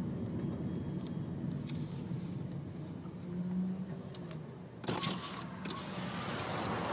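Steady low rumble with a few faint clicks; a broader hiss comes in about five seconds in.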